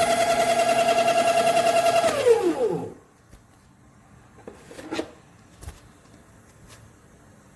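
Baratza Encore ESP electric burr coffee grinder's motor running steadily, then switched off about two seconds in, its pitch falling as it spins down within a second. A few light clicks and knocks follow.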